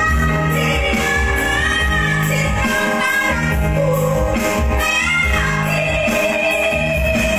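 A woman singing through a microphone over instrumental accompaniment with a regular bass beat, her voice high and soaring; she holds one long high note near the end.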